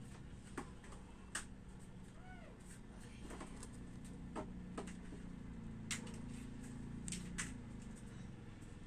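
Scattered light clicks and taps over a low steady hum, with one brief arched call about two and a half seconds in.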